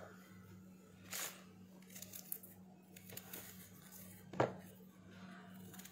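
A kitchen knife scraping and cutting through a piece of yellow pumpkin, quiet, with a few small clicks and a sharper knock about four and a half seconds in. A steady low hum runs underneath.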